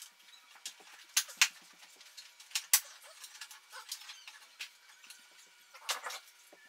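Sharp clicks and knocks of hard parts being handled while a sport bike's fairings are taken off. They come in two quick pairs in the first three seconds, then a short clatter near the end.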